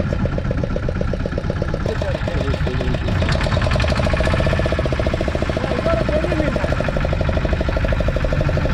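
Fishing boat's engine idling with a steady, rapid chugging pulse.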